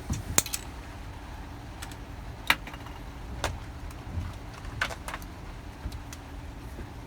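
Car keys being handled: a handful of short, sharp light clicks and clinks at uneven intervals, over a low steady hum.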